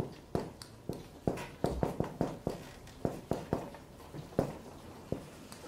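Marker tapping against a whiteboard as words are written: a string of sharp, irregular taps, two or three a second.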